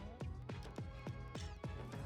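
Background music with a quick, steady beat of struck notes.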